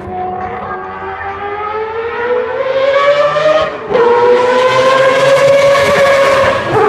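Mazda four-rotor rotary racing engine accelerating hard, its high, siren-like note climbing through the revs, dropping sharply at an upshift about four seconds in, climbing again and dropping at another upshift near the end. It grows louder as the car comes closer.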